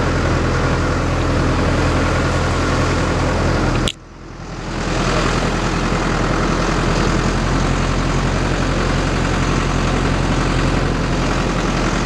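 Tractor engine running steadily under way. About four seconds in, a click and a sudden drop in the sound, which fades back up within about a second.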